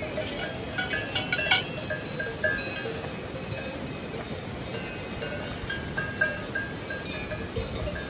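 Cowbells on grazing cows clanking irregularly, with a louder clank about a second and a half in, over the steady rush of a mountain river.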